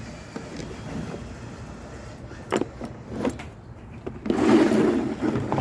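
Hard plastic tool cases being handled: a few sharp clicks, then about a second of louder handling noise near the end.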